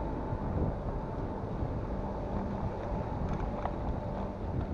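Wind buffeting the microphone of a rider on a moving bicycle: a steady, low rushing noise.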